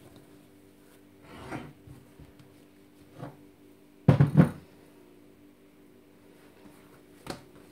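Risen yeast dough handled in a bowl, then dropped onto a wooden cutting board with one dull thump about four seconds in. The dough is being knocked back to press the air out.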